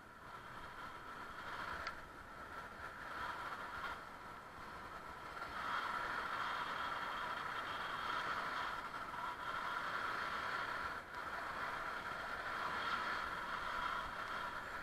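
A bicycle rolling along a paved path: a steady hiss of tyre and wind noise, which grows louder about six seconds in.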